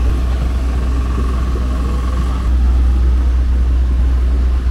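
Steady low rumble of airport apron noise beside a parked airliner, with a faint steady whine during the first half. It gets slightly louder about two and a half seconds in.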